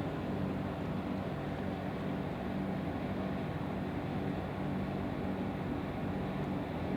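A steady low hum with an even hiss over it, unchanging, with no distinct events.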